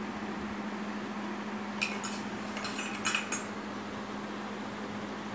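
Metal spoon clinking against a small steel bowl, a quick run of light clinks between about two and three and a half seconds in, over a steady low hum.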